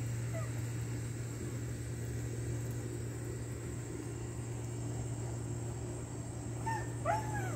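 A steady low mechanical hum throughout, and near the end a domestic tabby cat meows.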